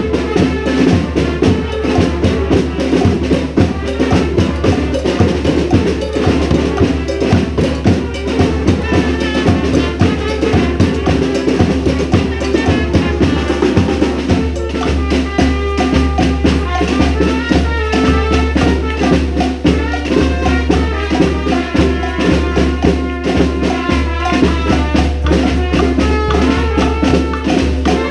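Brass band with drums and percussion playing a salsa tune, the horn melody standing out more from about halfway through.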